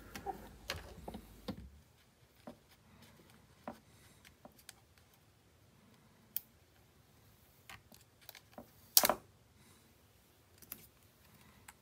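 Faint scattered plastic clicks and handling noises from a DJI Mavic Air 2 drone and its parts being handled, with one louder click about nine seconds in.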